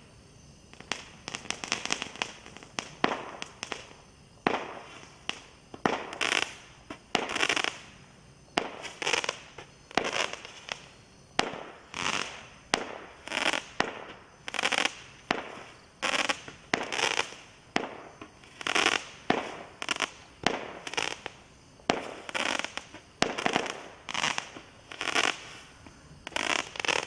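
Toot & Twirl 19-shot consumer firework cake (MB-8233) firing its shots one after another, about one a second. Each shot is a sharp pop followed by about half a second of hiss.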